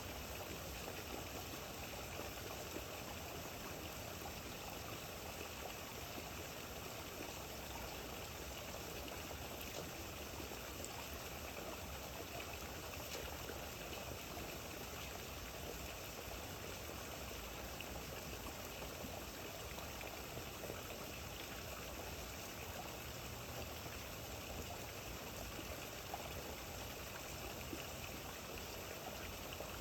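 Rain falling steadily: an even hiss with a few faint drip ticks.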